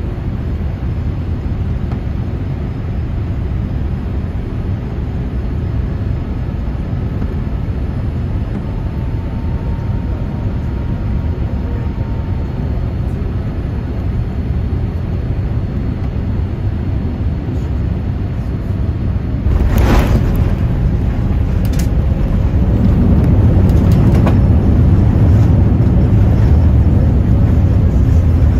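Cabin noise of a Boeing 787-8 airliner on final approach: a steady low rumble of airflow and its Rolls-Royce Trent 1000 engines. About two-thirds of the way through the main gear touches down with a hard thump, the uploader calls it a rough landing, and two smaller knocks follow. The roar then grows louder as the airliner rolls out on the runway.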